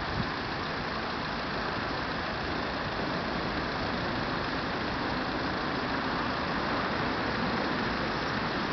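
Steady street traffic noise, with cars idling while stopped at a red light.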